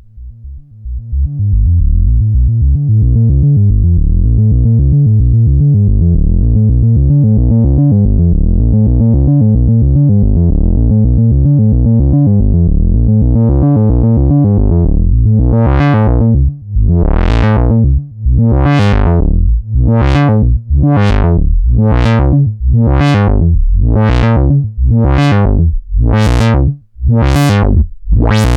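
Eurorack synthesizer patch: a Morphing Terrarium E350 oscillator through a voltage-controlled filter whose cutoff is swept by an LFO. It fades in as a low, rapidly pulsing drone. From about halfway, the filter opens and closes in repeating bright sweeps about every second and a half, reaching higher toward the end.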